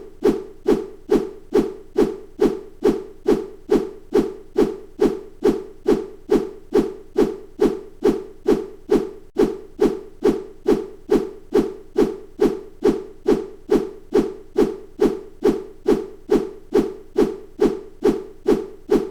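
Bamboo swished through the air: short whooshes repeating at a steady, even pace of about two and a half a second.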